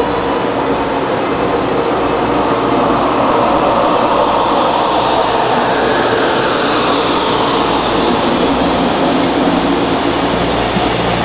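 Taiwan Railways stainless-steel commuter electric multiple unit (EMU) rolling slowly along the station platform. Its wheels, running gear and rooftop equipment make a steady rumble and hum that swells a little partway through.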